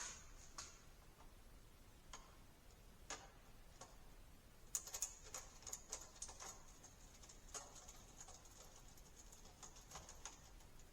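Faint scattered clicks and light taps from handling a high bay shop light fixture, with a quick run of clicks about five to six and a half seconds in.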